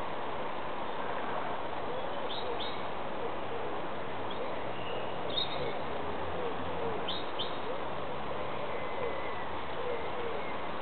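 Birds calling over a steady hiss: runs of low cooing notes repeating every half second or so, with a few brief high chirps from small birds.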